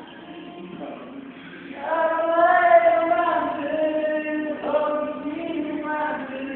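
Voices singing long held notes, faint at first and loud from about two seconds in.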